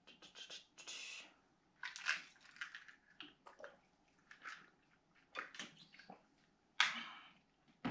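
A person taking tablets with a drink: short swishing and sloshing noises from a drinking bottle and pill box being handled, with gulps as she drinks.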